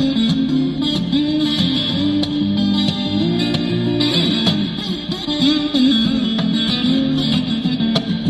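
Music led by guitar, with a moving melody line over a steady accompaniment.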